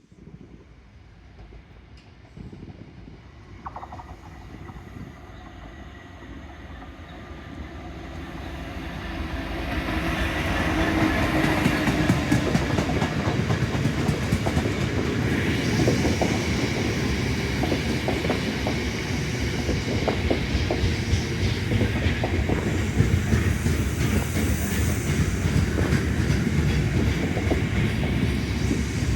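A train approaching and passing, growing louder over the first ten seconds or so, then a steady loud rumble with rapid clicks of wheels running over rail joints.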